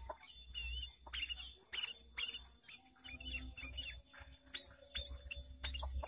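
Sooty-headed bulbul (kutilang) singing: a busy run of short chirping and warbling notes in quick clusters, several a second.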